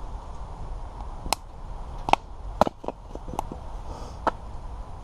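Firewood logs being handled or chopped: about seven sharp, irregularly spaced wooden knocks.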